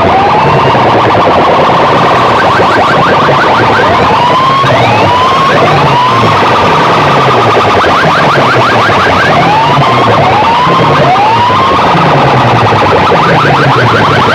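Loud DJ competition music through a large DJ sound-system setup: rising siren-like sweeps repeating about once a second over a pulsing bass pattern, with fast stuttering rattles in between.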